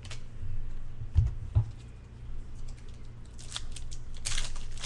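Baseball cards being handled and slid against one another: short rustles and clicks, with two low bumps a little over a second in and a denser run of rustling near the end.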